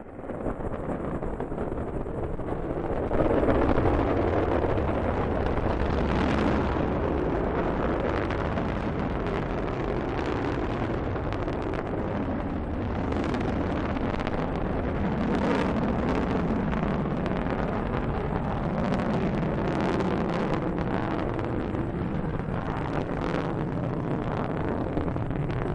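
Delta II 7920 rocket's main engine and strap-on solid motors during liftoff and climb: a loud, steady rumble with scattered crackling pops, growing louder about three seconds in.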